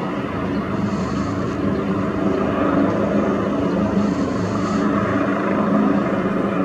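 Airbus H145 helicopter running steadily on the ground, its twin turbines and spinning rotor making a steady, even hum.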